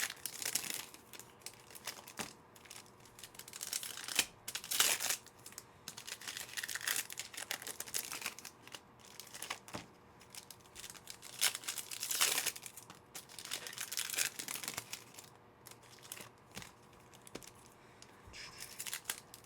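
Trading card packs being torn open and their foil wrappers crinkled, in irregular bursts of ripping and crackling with cards shuffled between.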